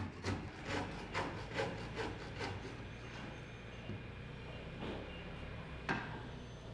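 Hand saw cutting through wood in even strokes, about two a second, stopping about two and a half seconds in; a single sharp knock follows near the end.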